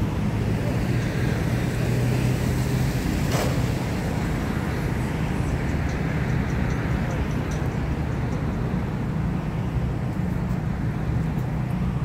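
An engine running steadily, a low even hum throughout, with a single sharp click about three and a half seconds in.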